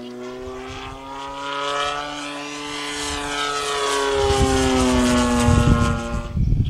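Radio-controlled model airplane's engine and propeller running steadily as it flies past, the pitch climbing slightly and then falling as it goes by, growing louder. Gusty wind rumbles on the microphone in the second half, and the sound cuts off abruptly just before the end.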